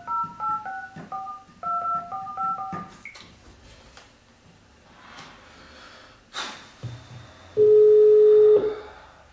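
Landline telephone touch-tone keypad beeps as a number is dialled in a quick run of about ten keypresses. Then a click on the line and a single steady ringing tone about a second long, the ringback tone of a call going through.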